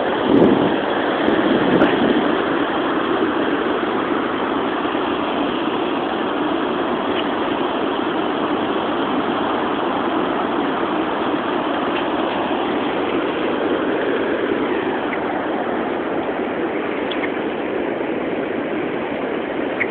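Steady wash of ocean surf and wind, a little louder for the first two seconds.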